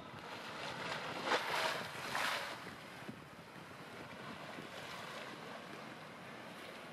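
Outdoor wind noise on the microphone, a steady rushing hiss with two louder gusts between about one and two and a half seconds in.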